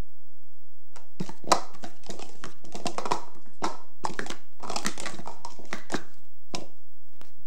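Plastic speed-stacking cups clattering and rustling as they are handled and stacked right next to the microphone: a rapid run of clicks and scrapes lasting about five seconds, with a sharp knock about a second and a half in.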